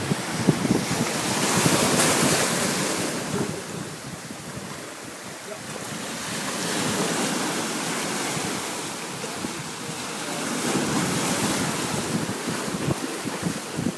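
Sea waves washing onto a beach, swelling and fading about every four to five seconds, with wind buffeting the microphone in gusts.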